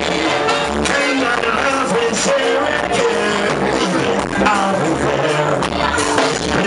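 Reggae music playing loud through a club sound system, with male vocals sung live into microphones over the backing music.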